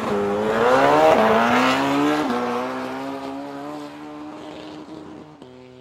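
A high-revving vehicle engine accelerating. Its pitch climbs and drops sharply at two gear changes, about one and two seconds in, then holds a nearly steady note and fades away.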